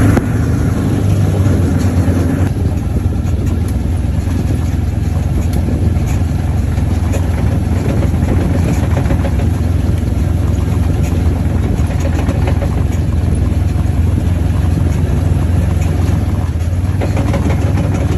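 A vehicle's engine running steadily as it drives slowly, a low even hum heard from inside the vehicle.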